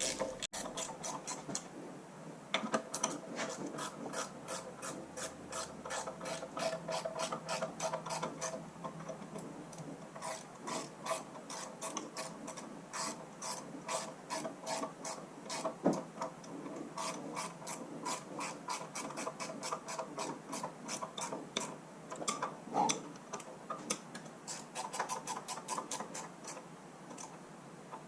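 Ratchet wrench clicking in quick runs with short pauses, tightening bolts with washers that draw down the rubber piece of the rear main crankshaft seal.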